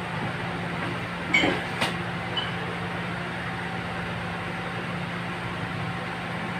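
A machine running with a steady low hum and a rough, even mechanical noise. There is a brief metallic clatter about a second and a half in.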